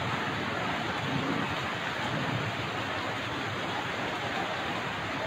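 Heavy rain falling, a steady, even hiss with no distinct drops or knocks.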